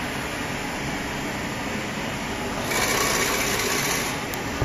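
Vibratory bowl feeder on an odd-form component insertion machine running in a burst of about a second and a half, over the steady hum of the machine. A sharp click near the end.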